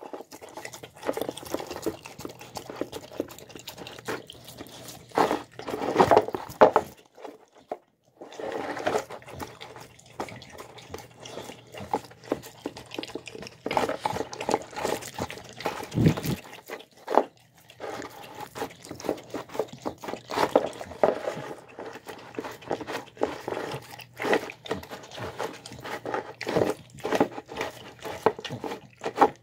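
Dog eating soft, mashed food from a bowl: irregular wet smacking, lapping and chewing noises close up, with a couple of short pauses.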